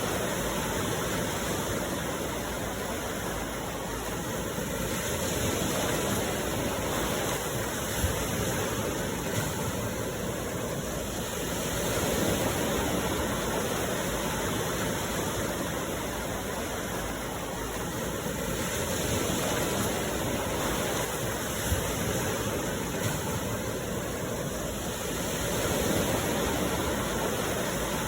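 Sea surf washing in, a steady rush that swells and eases about every seven seconds as waves come in. A few brief knocks stand out above it.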